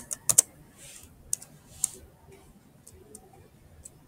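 Computer keyboard keystrokes: a quick pair of key clicks near the start, then a few scattered single, fainter clicks.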